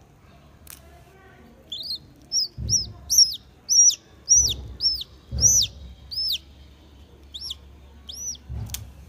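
Hatching chick peeping from inside its pipped egg: a string of about a dozen high, arched cheeps, roughly two a second, starting about two seconds in.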